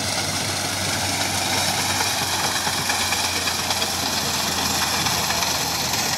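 Fiat 480 tractor's three-cylinder diesel engine running steadily as it pulls a front-mounted reaper through standing wheat.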